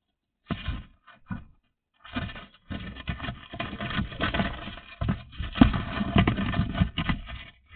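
Irregular rustling and scraping close to the microphone: two short bursts, then a near-continuous stretch of scraping from about two seconds in.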